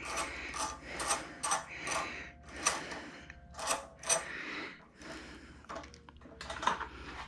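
Hand tools clinking and scraping against metal parts of a small engine, a string of short knocks and scrapes about one or two a second, some with a brief metallic ring.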